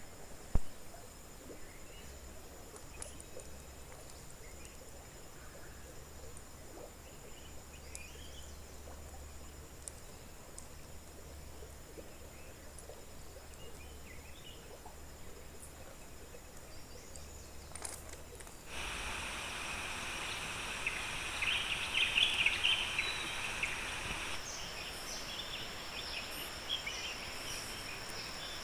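Outdoor ambience: a steady high insect drone over a faint noise haze, with scattered bird or insect chirps. There is a single sharp knock just after the start, and about two-thirds of the way in the background jumps suddenly louder, with busier chirping.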